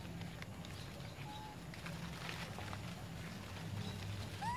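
Outdoor tree-canopy ambience: faint rustling and clicks over a steady low hum, with a short whistle-like call about a second in and a brief rising chirp near the end.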